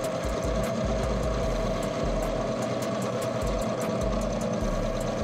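Small benchtop metal lathe running, its chuck spinning as the cutting tool turns a metal tube fitting: a steady whine over cutting noise, cutting off suddenly at the very end.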